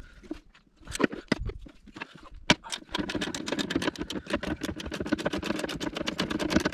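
Ratchet wrench clicking while undoing a 14 mm nut on the top mount of a car's front strut: a few scattered clicks at first, then from about two and a half seconds in a fast, steady run of clicks as the handle swings back and forth.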